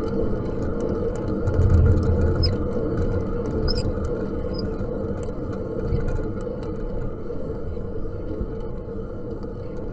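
Attic fan running steadily: a low whirring drone of the motor and blades, with a few faint squeaks and ticks a few seconds in.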